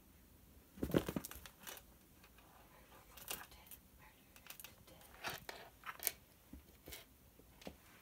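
A kitten scrabbling and pawing around a shoe on a rug and wooden floor: irregular rustles, scratches and light knocks, the loudest a burst of scuffling about a second in.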